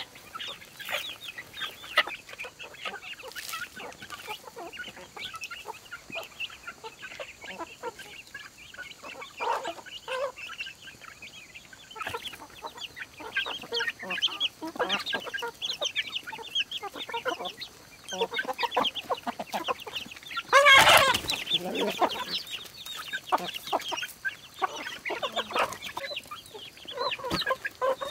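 A flock of chickens clucking and chirping continuously, with one louder call lasting about a second roughly three-quarters of the way through.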